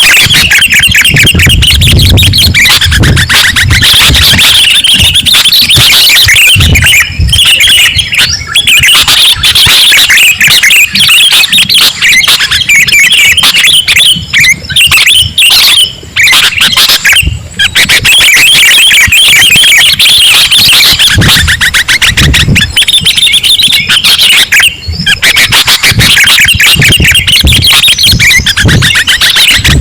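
Sooty-headed bulbul (kutilang) calls played as a bird lure: loud, dense, fast chirping and chattering, with a few brief pauses.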